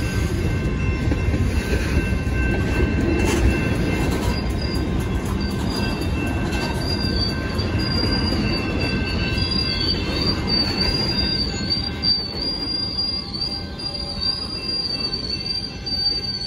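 Freight train of tank cars and covered hoppers rolling past close by, its wheels rumbling on the rails. About four seconds in, a high wavering squeal from the wheels starts and grows stronger.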